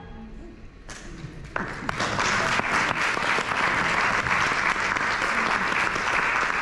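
An audience applauding: a short quiet moment, then scattered claps about a second in that swell into steady applause.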